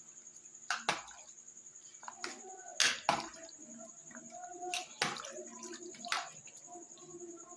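A metal ladle stirring a watery mix of goat trotters, onions, tomatoes and chillies in a metal pot: liquid sloshing, with several sharp clinks of the ladle against the pot.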